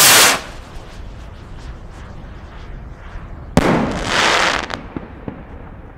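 A large firework rocket's launch rush dies away just after the start. About three and a half seconds in, its shell bursts with a sharp bang, followed by about a second of hissing crackle from the effect.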